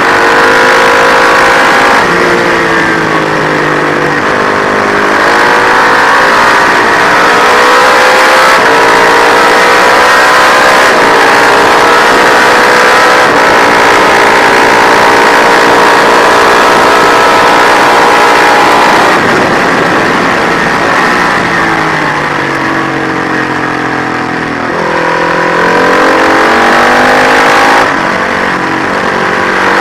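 Matchless G50 single-cylinder four-stroke racing engine being ridden hard: the revs dip and climb through the gears, hold high and steady for about ten seconds, then fall away in steps as it is shut off and changed down for a corner, before picking up again near the end.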